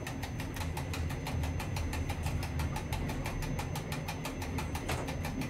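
Diesel railcar engine running steadily, heard from inside the driver's cab as the train moves off slowly: a low rumble with a fast, even ticking rhythm.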